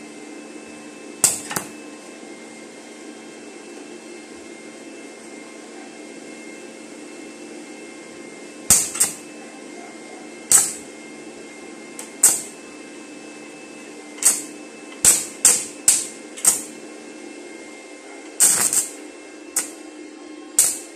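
Stick-welding rod being struck against steel: about a dozen short crackling bursts of arc, some single and some in quick clusters, each dying out within a fraction of a second. A steady electrical hum runs underneath.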